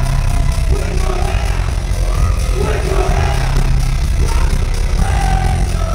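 Loud live music at a concert, heard from within the crowd: a heavy, steady bass with sustained melody notes above it.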